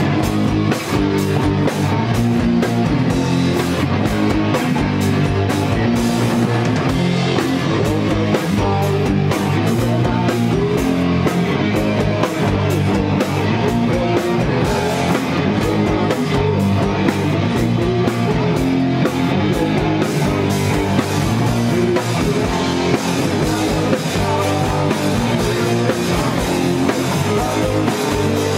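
Live rock band playing loudly: electric guitars, bass guitar and a drum kit, with rapid, busy drum and cymbal hits.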